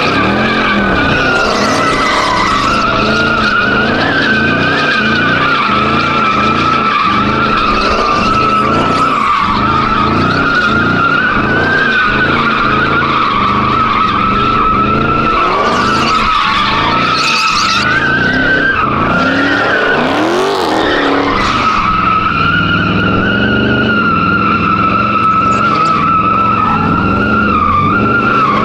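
Muscle car spinning donuts: tyres squealing continuously over the engine held at high revs.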